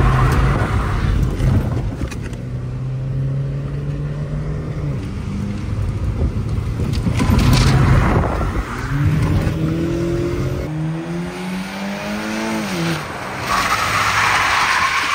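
Chevrolet Cobalt's four-cylinder engine heard from inside the cabin, running steadily, then revving up in a rising whine for several seconds before dropping away. Near the end, a hiss of tyres on wet pavement.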